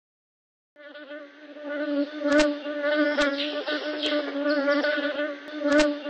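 A flying insect buzzing close by with a steady hum, starting about a second in, broken by a few sharp clicks.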